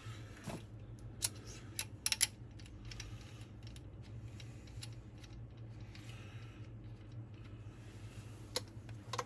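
Small sharp metallic clicks and taps from handling a rocker arm and its adjuster screw on a lift-testing jig, with a quick cluster about two seconds in and two more near the end, over a steady low hum.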